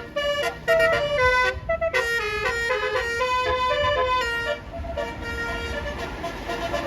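Bus telolet horn, a Basuri multi-tone musical horn, playing a quick melody of short stepped notes over the low noise of the passing bus. The notes grow softer and more drawn out about four and a half seconds in.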